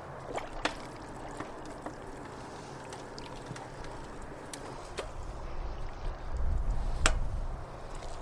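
Meat broth boiling in a large outdoor cauldron, a steady bubbling with a few sharp clicks as a utensil prods the meat. A low rumble swells near the end.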